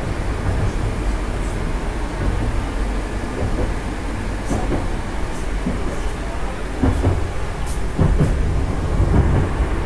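Moscow Metro 81-765/766/767 train running along the track, heard inside the car: a steady low rumble of wheels and running gear, with a few louder knocks in the last three seconds.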